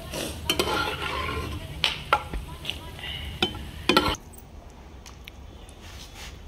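A metal spatula scraping and clinking in a kadhai as almonds are stirred while roasting in hot ghee, over a frying sizzle. The stirring and sizzle stop suddenly about four seconds in, leaving a faint steady hiss.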